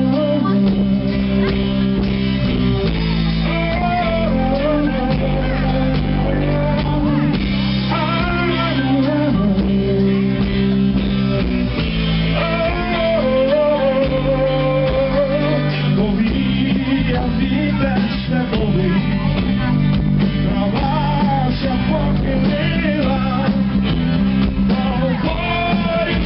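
Live rock band: a man singing a melody into the microphone over an amplified Stratocaster-style electric guitar and band, played through the stage PA.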